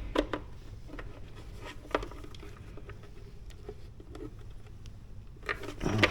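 Small clicks, taps and scrapes of a wiring connector and its wires being worked against the plastic edge of a tight hole in a motorcycle fairing, with a busier cluster of knocks near the end.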